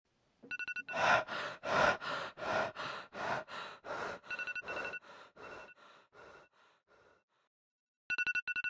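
An iPad alarm ringing: quick beeps in groups of four, with a second group near the end. Over the first seven seconds comes a rapid run of breathy rushes of noise, about three a second, that fade away.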